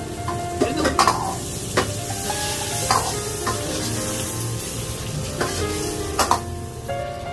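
Food sizzling as it fries in a pan while being stirred, with a utensil knocking against the pan several times.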